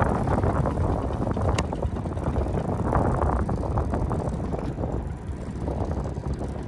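Wind buffeting the microphone out on a fishing boat, a steady gusty rumble with no clear machine rhythm, and one sharp click about a second and a half in.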